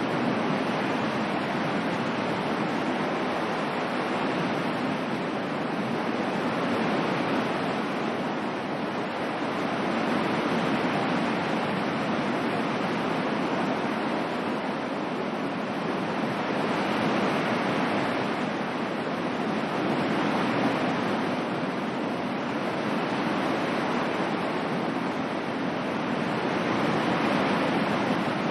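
Ocean waves washing on a shore, a steady surf noise that swells and eases slowly every few seconds.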